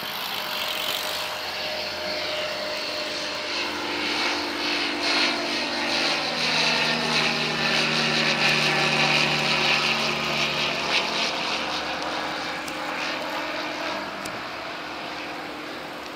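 Aquila A211 light aircraft's Rotax 912 four-cylinder engine and propeller passing overhead: a steady drone that grows louder, is loudest about eight to ten seconds in, then drops in pitch as it goes away and fades near the end.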